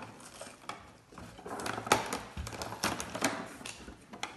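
Irregular light clicks and taps of objects being handled on a wooden table: snacks taken from a plate and cardboard packaging moved. The clicks are thickest in the middle of the stretch.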